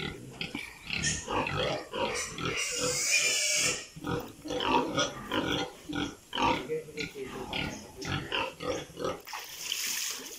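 Pigs grunting and squealing in a rapid, irregular run of short calls, with a louder, harsher squeal from about two and a half to four seconds in.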